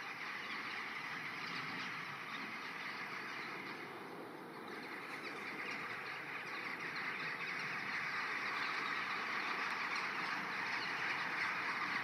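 A large roosting flock of rooks and jackdaws calling all at once, a dense chorus of overlapping caws and chatter, dipping briefly and then growing louder about halfway through as the birds lift into the air again.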